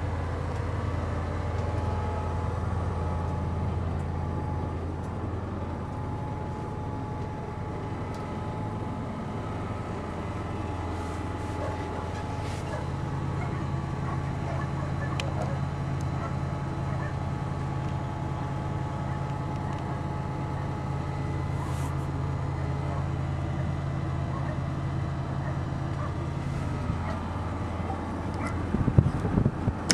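Steady low mechanical hum with a faint steady whine above it. A second, slightly higher hum joins about halfway through and drops out near the end. A few short knocks come just before the end.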